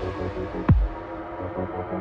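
Electronic background music with a sharp bass hit that drops steeply in pitch about two-thirds of a second in.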